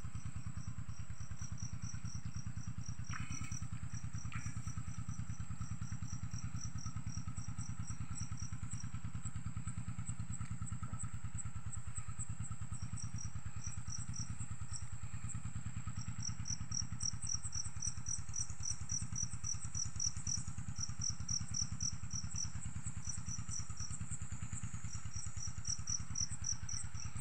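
A small engine running steadily at an even speed, with insects chirping in quick repeating pulses on top.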